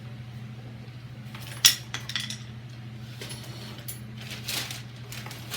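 Tools and small metal parts clinking and clattering as a cluttered workbench is rummaged through. There is one sharp clink about a second and a half in, a few lighter clicks and some rustling, and a steady low hum underneath.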